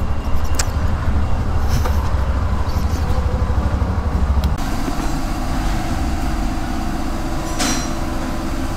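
Hero motorcycle running, with an abrupt change in the sound about four and a half seconds in, after which a steadier engine hum with faint pitched tones carries on.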